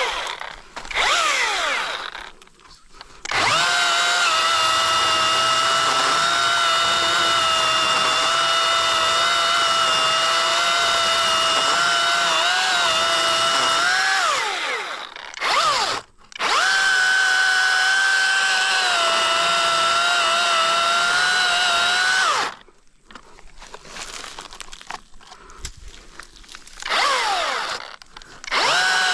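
Battery-powered Youxian electric chainsaw cutting into a tree trunk for the felling notch, running as a steady high motor whine in several long bursts. Its pitch sags slightly under load and falls away as the motor winds down between cuts.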